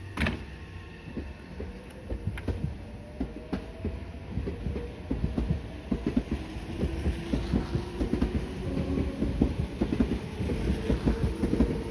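Meitetsu 6000 series electric train standing at the platform with its equipment running: a steady low hum, a faint rising whine a few seconds in, and a rapid irregular clatter of clicks that grows louder toward the end.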